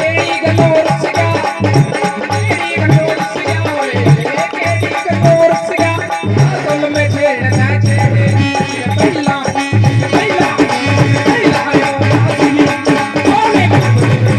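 Instrumental interlude of a Punjabi devotional song: a wavering melody line over a fast, even percussion beat with a rattling shaker.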